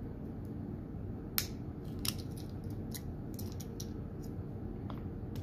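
Light metallic clicks and ticks of a hook pick working the pin stacks of a Master Lock 141D pin-tumbler padlock held under tension, coming at irregular intervals, with sharper clicks about a second and a half in and again near two seconds.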